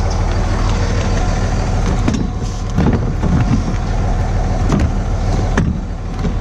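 A vehicle being driven, its engine and road noise a steady low rumble, with a few sharp knocks or rattles scattered through.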